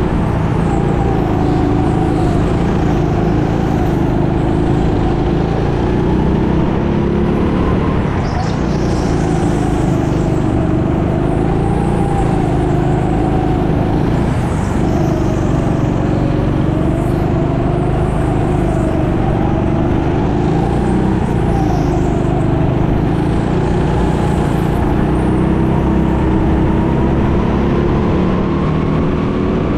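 Go-kart engine running hard, its pitch rising and falling every few seconds as the kart accelerates and lifts through the lap.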